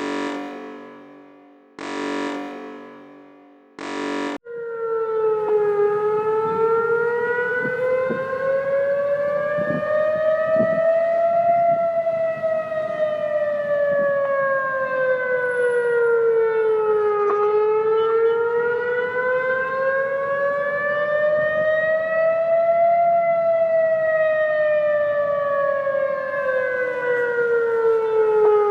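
Three short, decaying tonal hits, then a wailing siren, civil-defence style, that slowly rises and falls in pitch. Each rise or fall takes about six seconds.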